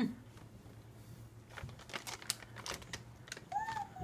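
Motorised baby swing running with a steady low hum and scattered light clicks from its mechanism, after a soft thump at the start. A short high call sounds near the end.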